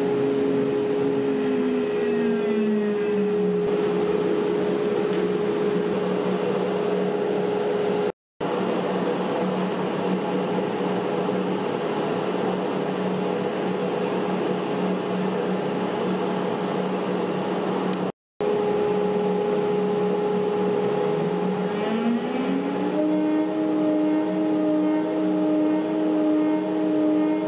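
DWC5100 4×8 ft CNC router running, its spindle cutting a sheet with steady machine noise and a constant hum. One tone in the hum slides down in pitch in the first few seconds and climbs back up about 22 seconds in. The sound cuts out briefly twice.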